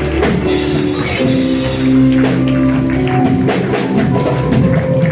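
Worship music playing under the preaching: held chords over a steady bass, with light percussion.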